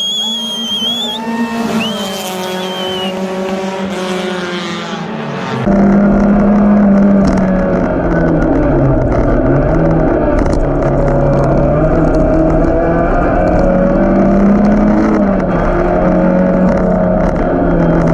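A whistle is blown in two warbling blasts while an approaching race car's engine revs up. About six seconds in the sound switches to inside a 1600cc race car's cockpit: its engine runs loud under hard driving, the pitch dipping and rising again several times with the throttle.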